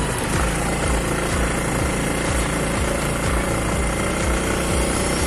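Motorcycle engine running steadily while riding, with wind noise over the microphone.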